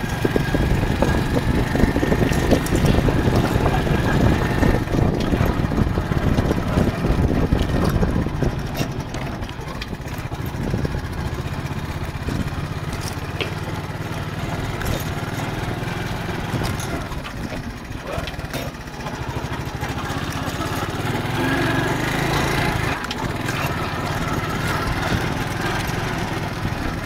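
Motorcycle engine running while riding along a rough dirt track, a dense low rumble with irregular knocks. It is louder for the first several seconds, then steadier.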